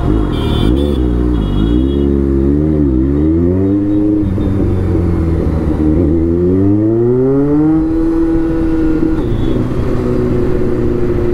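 Kawasaki Z900's inline-four engine under way. The revs dip and rise several times, then climb in one long rise about six to eight seconds in before settling to a steady note.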